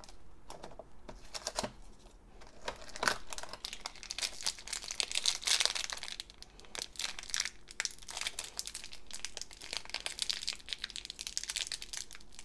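A foil blind bag being torn open and crumpled by hand: a dense run of crinkling and tearing crackles, busiest about five to six seconds in.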